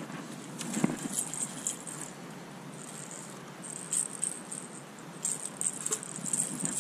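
Light metallic jangling and clicking of fishing tackle as the hook is worked in a landed catfish's mouth. There is a sharp tick about a second in, another near four seconds, and a run of quicker clicks near the end.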